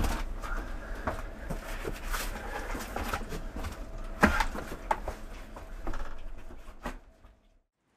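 Scattered knocks, clicks and rustling of someone handling cans and boxes in a small storeroom, with one sharp knock about four seconds in. The sound dies away to near silence shortly before the end.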